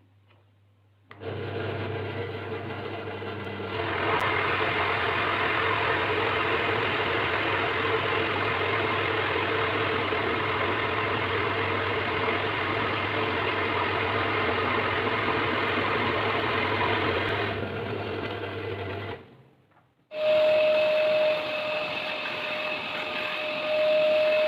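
An electric power tool's motor running steadily. It starts about a second in, gets louder a few seconds later, and stops near the end. After a brief pause, a motor with a steady whine starts up.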